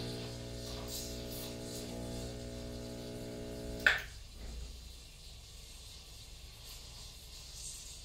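Rancilio Silvia Pro espresso machine's vibratory pump humming steadily, then cut off about four seconds in with a sharp click and short hiss as the brew is switched off. A fainter hiss follows.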